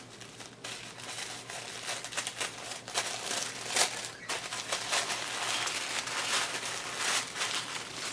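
Packaging being handled and unwrapped by hand, crinkling and rustling irregularly.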